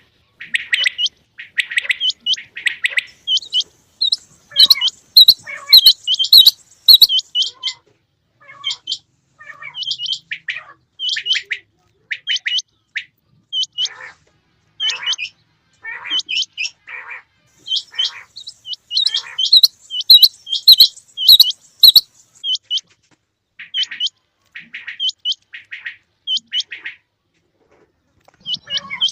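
Rain quail calling: a run of short, sharp, high-pitched notes repeated a few times a second in clusters, with brief pauses between runs and louder bursts near the start and again about two-thirds of the way through.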